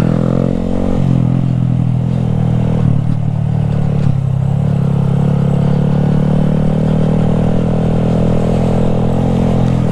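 Honda Grom's small single-cylinder engine running at a steady, fairly constant pitch while riding off-road, its exhaust baffle out. Brief knocks about three and four seconds in.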